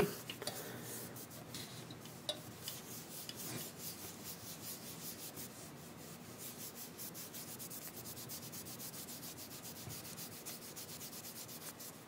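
Cloth rubbing back and forth on the copper base of a CPU heatsink in faint, quick, regular strokes: the contact surface being wiped clean with rubbing alcohol before thermal paste is applied.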